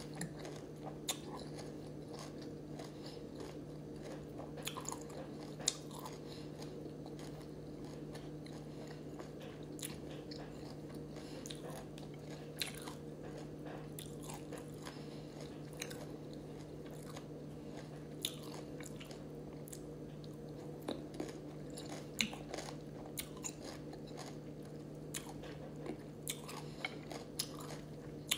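A person chewing a small whole sour lemon, with scattered short wet mouth clicks and bites, over a steady low hum.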